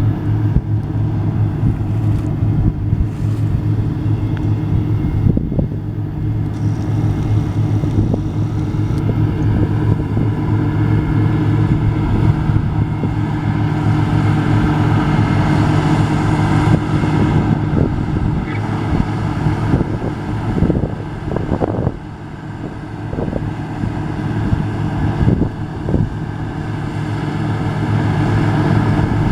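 Combine harvester engine running steadily at work, a continuous low drone with a steady hum, dipping slightly in loudness about two-thirds of the way through.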